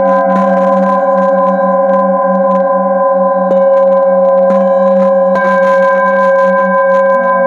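Hand-held metal singing bowl played with a wooden mallet, ringing with several overlapping sustained tones. The lowest tone pulses in a slow wobble, and there are a couple of soft strikes about halfway through.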